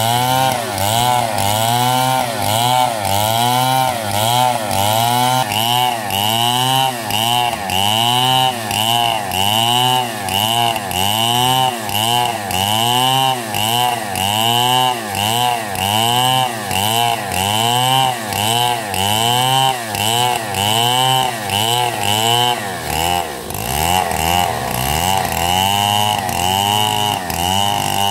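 Two-stroke Stihl chainsaw ripping a log into lumber under full throttle, its engine pitch rising and falling in a steady rhythm about one and a half times a second as the bar is worked through the wood. Near the end the pitch sags lower for a moment, then climbs back.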